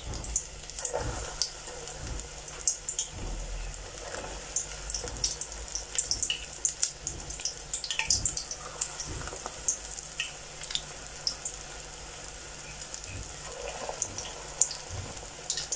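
Onion bhajia batter deep-frying in a pot of hot oil: a steady sizzle with frequent sharp crackles and pops as the batter cooks.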